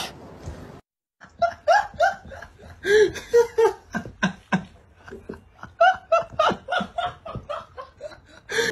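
A person laughing hard in many short, choppy bursts with brief breaks between them.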